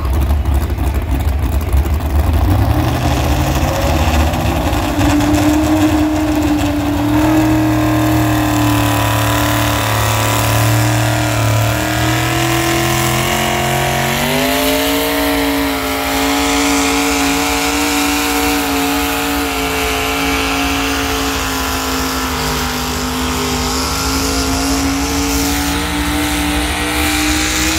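Pulling tractor's engine revving hard, its pitch climbing in several steps over the first half and then holding high and steady.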